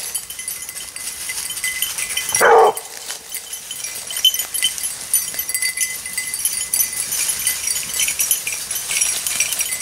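A Grand Basset bleu de Gascogne hound gives a single short bay about two and a half seconds in, falling in pitch and then held briefly. A faint high tinkling runs behind it.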